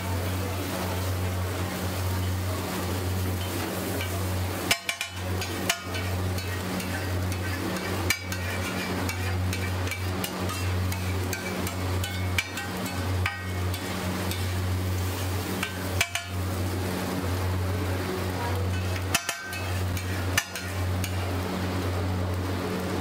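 Metal spatula scraping, chopping and stirring scrambled egg on a large flat iron griddle (tawa), with frying sizzle and about seven sharp clangs of the spatula striking the griddle. A steady low hum runs underneath.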